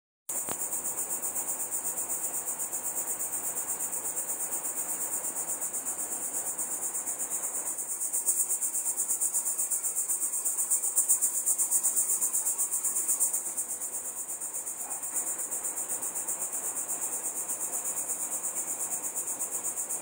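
Cicadas calling: a high-pitched, pulsing buzz that grows louder for a few seconds in the middle.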